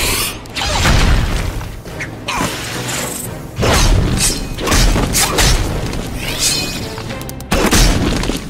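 Cartoon fight soundtrack: action music under several heavy crash and boom sound effects, with whooshing sweeps between the hits.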